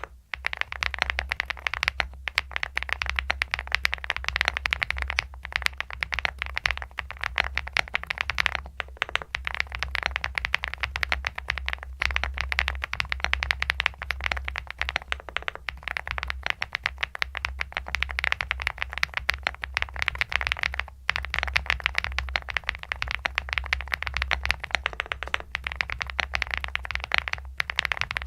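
Typing on the Ticktype DP104, a full-aluminium, leaf-spring-mounted full-size mechanical keyboard: a fast, steady stream of keystrokes with short pauses every few seconds.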